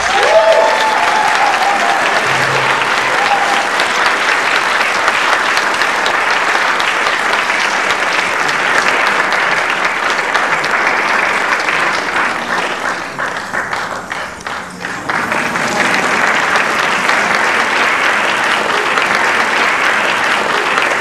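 Audience applauding, dense and steady; the clapping thins for a moment about two-thirds of the way through, then picks up again.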